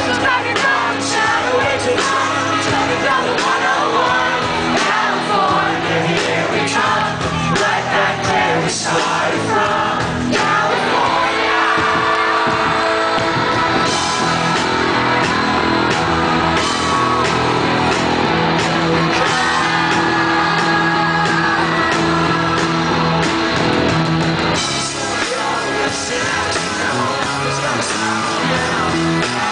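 Live rock band playing: a male lead singer singing loudly over electric guitar and drums.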